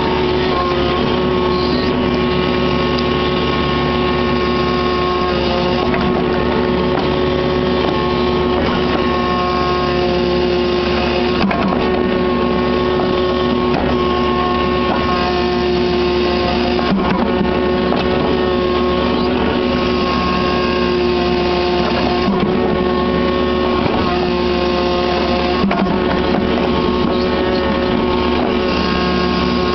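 Kubota KX61-3 mini excavator's diesel engine running steadily, heard loud from the operator's seat, with whining tones that shift as the arm and bucket move and a few knocks of the bucket on the soil.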